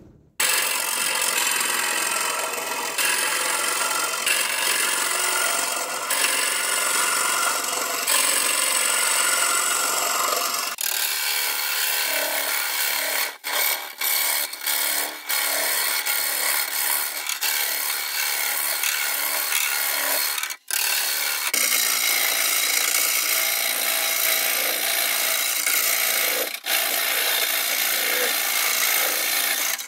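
Hollowing tool cutting the inside of a spinning alder form on a wood lathe: continuous noise of wood being shaved away, starting suddenly about half a second in and broken by a few brief gaps where the tool comes off the cut.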